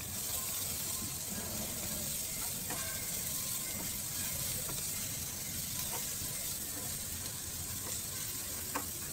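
Mushrooms, onions and green chillies sizzling steadily in hot oil in a frying pan while being stirred with a spatula, with a few light taps of the spatula against the pan.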